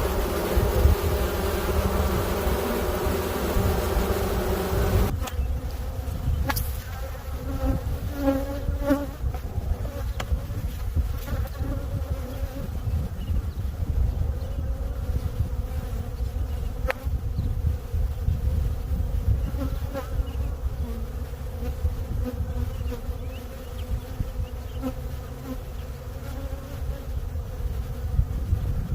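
Honeybee colony humming in a hive. The hum is full and dense at first, then turns suddenly thinner about five seconds in, over a steady low rumble, with a few faint clicks.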